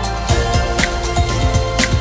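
Background music with a steady drum beat, a sharp hit about once a second over low kick drums and held melodic notes.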